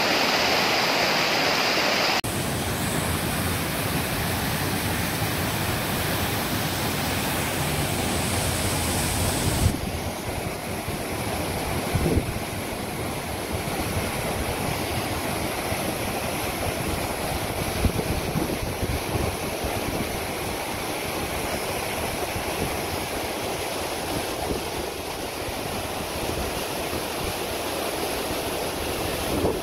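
Rushing water of a mountain stream and waterfall, a steady noisy rush that changes in character abruptly twice, with a few brief bumps.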